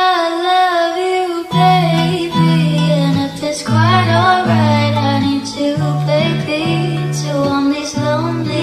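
Background song with a woman singing over plucked guitar. A stepping bass line comes in about a second and a half in. It starts right after an abrupt cut from a different track.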